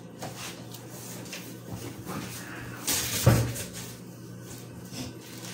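Handling noise from a small plastic sprinkles tub: clicks and knocks of the lid being fiddled with, with one louder knock a little over three seconds in.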